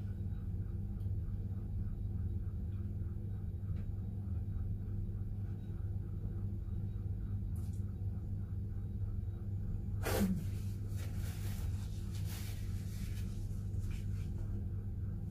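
A person eating, with faint chewing and mouth sounds over a steady low electrical hum. About ten seconds in comes one sudden, short, breathy burst, then scattered faint crackly noises.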